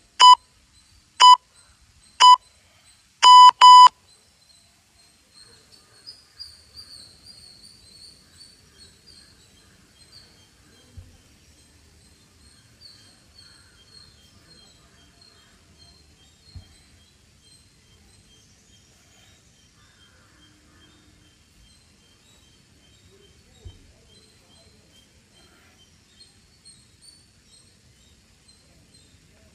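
Workout interval-timer countdown: three short electronic beeps a second apart, then one longer beep, signalling the start of a one-minute exercise round. Faint bird chirping follows.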